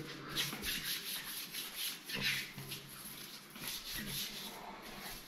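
A bare hand rubbing and wiping across smooth marble-pattern wall tiles in a run of short, quick swishing strokes.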